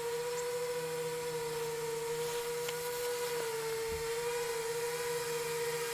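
8-inch FPV quadcopter's motors and propellers giving a steady whine as it flies in on its landing approach, the pitch wavering slightly with the throttle.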